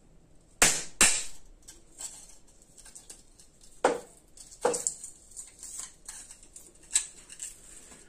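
Flat-blade demolition screwdriver prying and chipping a glued magnet strip off a steel tool cart: a handful of sharp knocks and clicks, the loudest two close together under a second in, the rest spread out.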